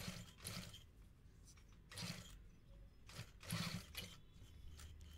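Industrial sewing machine stitching slowly in a few short bursts along the edge of a kurta's collar band.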